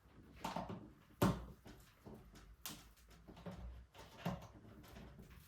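Handling of a cardboard bicycle shipping box being opened: a string of sharp knocks and clicks, the loudest about a second in and again near the three-second mark, among fainter scraping and rustling.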